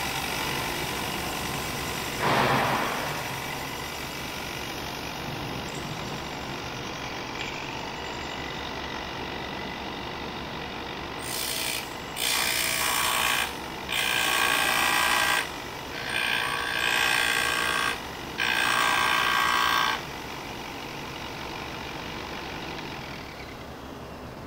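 Ryobi belt-and-disc sander running steadily, with the end of a metal angle bar pressed against the sanding disc in five short passes between about 11 and 20 seconds in, each a harsh grinding hiss, to square the cut edge. A brief louder scrape comes about two seconds in.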